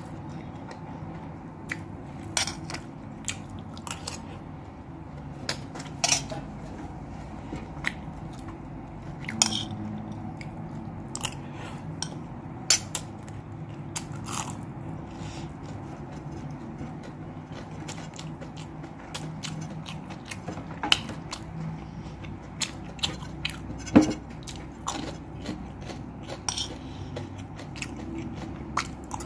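Eating fried rice with chicken nuggets: a spoon or fork clinks and scrapes on a plate with irregular sharp clicks, the loudest about 24 seconds in, along with chewing and biting. A steady low hum runs underneath.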